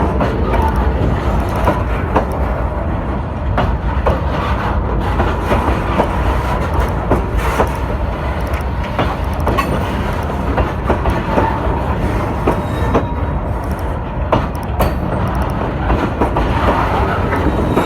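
Train running on its rails, a steady rumble with short, irregular clicks from the wheels.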